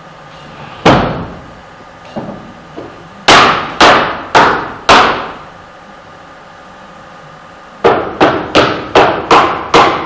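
Nails being driven into a wooden pallet, sharp hits with a short ringing decay: one about a second in, then four loud strikes about half a second apart, and near the end a quicker run of about six.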